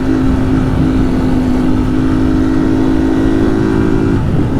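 Honda CG Start 190 single-cylinder engine running without an air filter, holding a steady pitch while cruising, with wind noise rushing over the microphone. The engine note briefly drops out about four seconds in, then picks up again.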